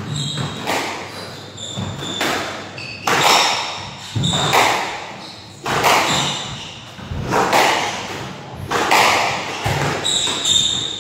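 Squash rally: the ball struck by racquets and smacking off the court walls roughly once a second, each hit echoing around the court. Short high squeaks of shoes on the wooden floor come between the hits.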